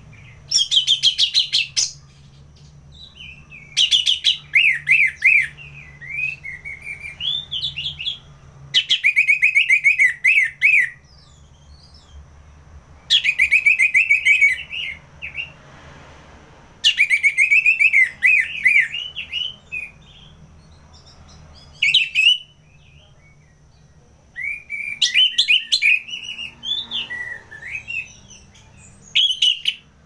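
Orange-headed thrush singing in loud bursts of rapid repeated notes, each burst about two seconds long and coming every few seconds, with softer, varied warbling phrases in between.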